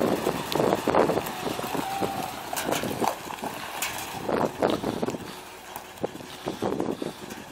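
1968 International Loadstar's V-345 gas V8 engine running, uneven and louder at first, then settling to a quieter, steady idle about two thirds of the way through, with some wind on the microphone.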